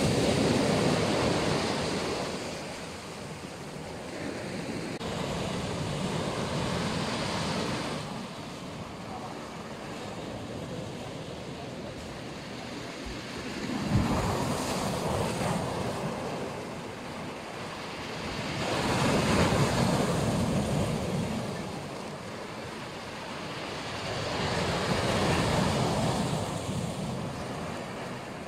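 Black Sea surf breaking and washing back in slow swells a few seconds apart, with a sudden crash of a wave about halfway through. Wind buffets the microphone.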